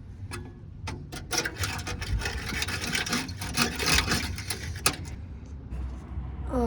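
Ratchet wrench clicking in quick, irregular runs as it works the heat shield bolts loose under the car, busiest from about a second and a half to four seconds in.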